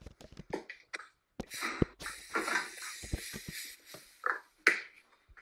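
Kitchen handling sounds: irregular clicks and knocks, with about two and a half seconds of scraping, rustling noise in the middle.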